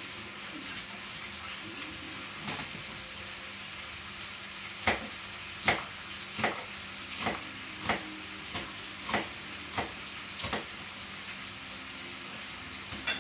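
Knife chopping red chilies on a cutting board: about ten sharp, unevenly spaced knocks over some five seconds, starting about five seconds in, over a steady low hiss.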